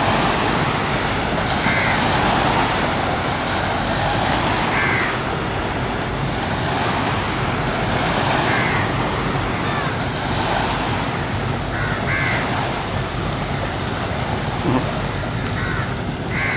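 Steady wash of open water and wind along the shore, with a bird's short call repeating every three to four seconds.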